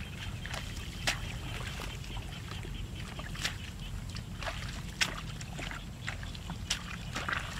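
Steady low wind rumble on the microphone, with scattered short rustles and clicks from hands working through grass and weeds along a ditch.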